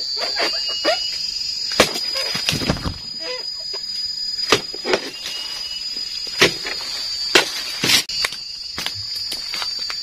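Scattered sharp cracks and crunches of dry oil palm fronds and stalks under a worker's feet, over a steady high-pitched whine.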